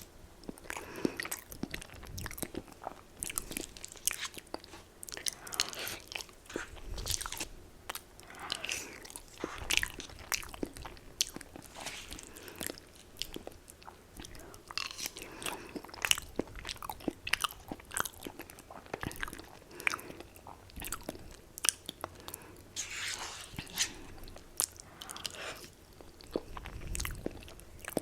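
Close-miked biting and chewing of crunchy Popeyes fried chicken: a steady, irregular run of sharp crackling crunches with chewing between them.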